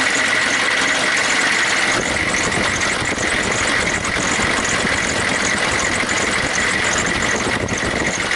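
Chevy 6.5 L V8 turbo diesel idling steadily, heard close up in the engine bay, with a steady high whine over the engine noise.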